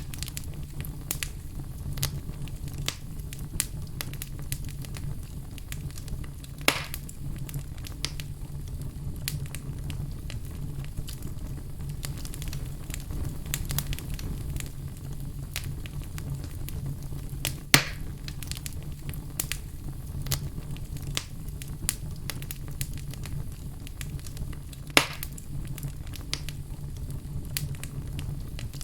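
Fire in a fireplace crackling steadily, with many small ticks and three louder pops spread through, over a steady low rumble.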